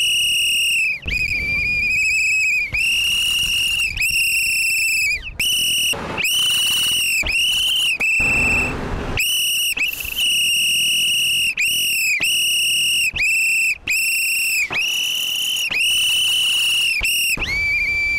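A long run of loud whistle blasts from different people blowing handheld whistles, one after another. Most blasts last from a fraction of a second to about a second, each a single steady shrill tone that bends slightly as it starts and stops, with brief gaps between them.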